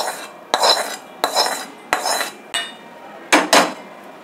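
Metal spoon scraping and knocking against a metal kadhai (Indian wok) while ghee-roasted wheat flour is scraped out into a bowl. The strokes are separate, about one every half second, with a bright metallic ring on each knock and a quicker cluster about three and a half seconds in.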